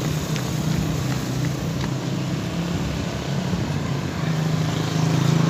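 A motor vehicle's engine running steadily close by, with street noise around it; it grows louder near the end.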